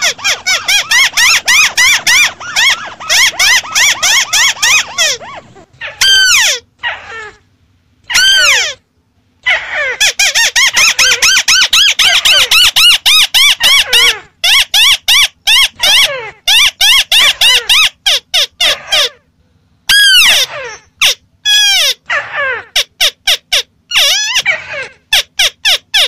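White-browed crakes calling, several birds at once: fast runs of chattering, arched notes that overlap and repeat, broken by a few short pauses. This is a bird-lure (pikat) recording meant to draw crakes in.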